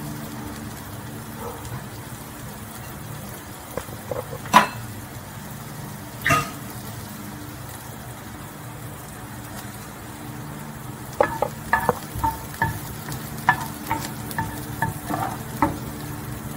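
Garlic and onion sautéing in oil in a nonstick frying pan, a steady sizzle. Two sharp clicks come about four and a half and six seconds in, and from about eleven seconds a spatula stirs the pieces, knocking and scraping against the pan in a run of irregular clicks.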